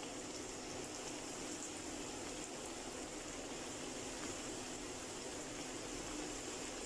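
Flour-dredged eggplant slices frying in a pan of very hot oil: a steady sizzling and bubbling.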